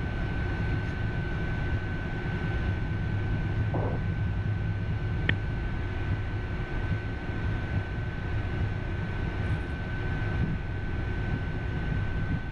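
Cockpit noise of an Embraer Phenom 300 jet taxiing onto the runway: a steady low rumble from its two turbofan engines at taxi power, with a steady high whine. A single sharp click about five seconds in.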